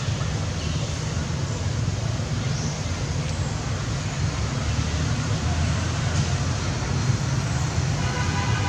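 Steady low rumble of road traffic. A sustained pitched tone, such as a vehicle horn, starts near the end.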